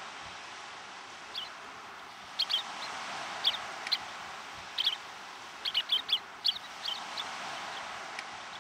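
Small shorebirds giving short, high chirping calls, a dozen or so scattered through and busiest about six seconds in, over a steady rush of surf.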